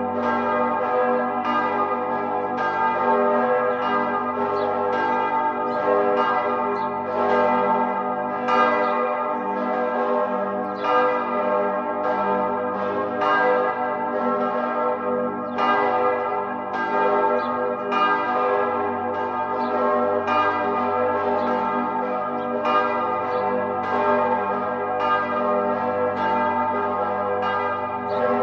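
Church bells pealing: several bells struck one after another at about two strokes a second, their ringing tones overlapping into a continuous peal.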